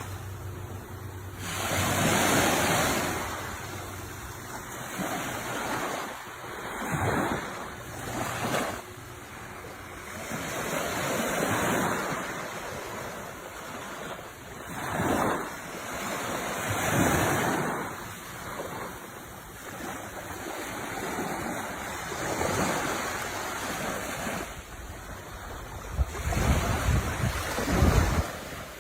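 Sea waves breaking and washing ashore, the surf swelling and falling away every few seconds, with the loudest surge near the end.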